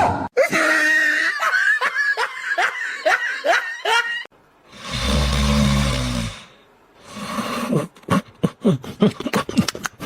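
A person laughing in rapid repeated bursts, with a loud harsh cry about halfway through.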